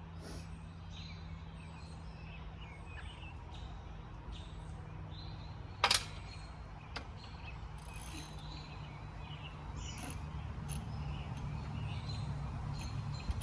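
Birds chirping over a steady low hum, with scattered light ticks and one sharp, loud click about six seconds in.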